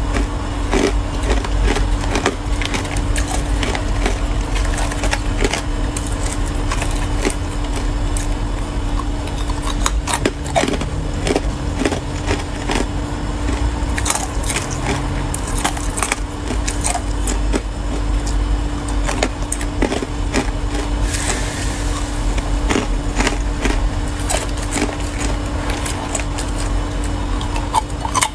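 Ice cubes dusted with matcha powder being bitten and chewed, a dense, uneven run of sharp crunches and cracks, over a steady low hum.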